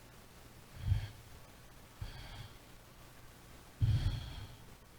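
A man breathing heavily into a microphone: three short, sharp exhales, the last one the loudest, over a faint low hum.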